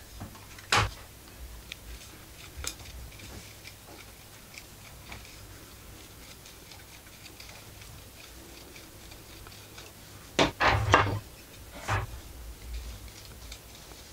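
Knife whittling the end of a round wooden rod: faint scrapes and ticks of the blade shaving wood. A few sharp knocks stand out, loudest in a quick cluster about ten seconds in.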